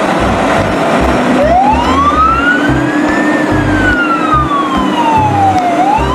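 A siren wailing: one slow rise in pitch and a longer fall, starting to rise again near the end. Under it run a steady rushing noise and low thumps.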